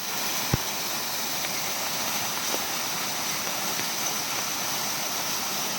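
Waterfall: a steady rush of falling water, with one brief knock about half a second in.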